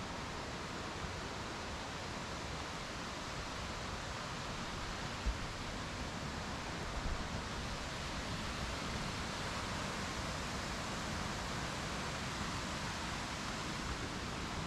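Steady, even rushing of falling water from a waterfall, with a faint low thump about five seconds in.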